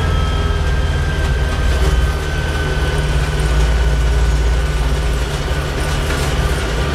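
LS XU5055C tractor's diesel engine running steadily under load at road speed, heard from inside the cab, with a thin whine above it that slowly drops in pitch.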